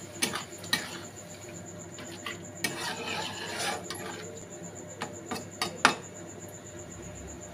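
Flat metal spatula stirring and scraping wet chicken mince in a black wok, with several sharp clinks of metal on the pan and the busiest scraping about three seconds in.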